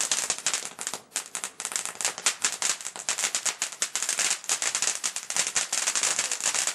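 Ground firework fountain spraying sparks with a dense, rapid crackle of many small pops each second.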